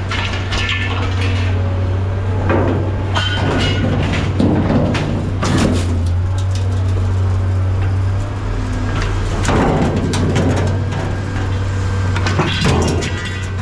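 A heavy engine running steadily at a low drone, with repeated clanks, knocks and scrapes of metal being handled over it.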